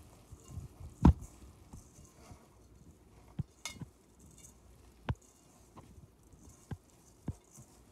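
Hands mixing shredded kunafa dough with melted butter in a stainless steel bowl: soft rustling of the strands, with several short knocks and clinks against the bowl, the loudest about a second in.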